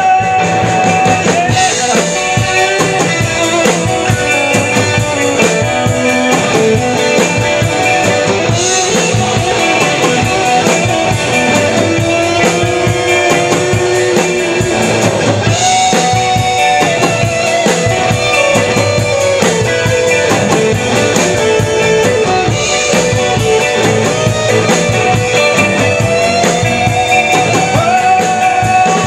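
Live rock band playing with electric guitars, bass and drum kit, held guitar notes over a steady drum beat.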